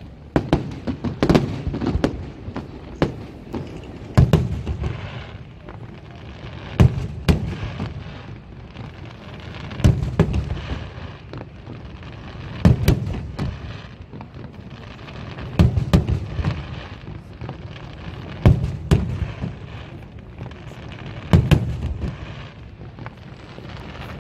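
Aerial firework shells bursting in a steady sequence, about one burst every three seconds. Each is a sharp bang or a quick cluster of bangs, followed by a low rolling echo.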